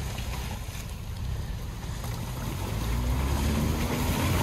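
Ford Bronco's engine running under throttle as its tyres churn through a slushy, muddy rut, growing louder over the last couple of seconds.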